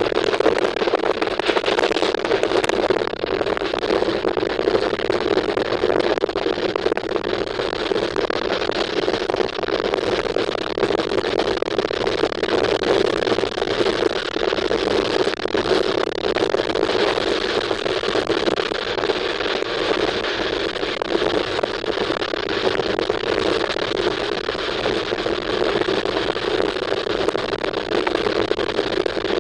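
Steady running noise of a moving train, loud and unbroken.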